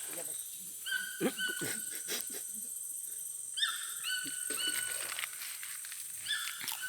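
Short, high-pitched animal calls repeated in quick groups, each with a quick upward slide into a held note, over a steady high insect drone. A few soft knocks come about one to two seconds in.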